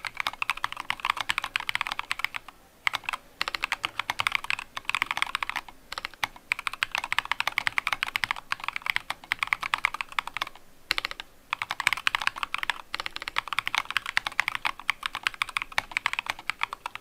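Typing on a mechanical keyboard with Durock POM linear switches, stock and unlubricated, under SA-profile keycaps in an acrylic case. Fast runs of keystrokes break off briefly about two, six and eleven seconds in.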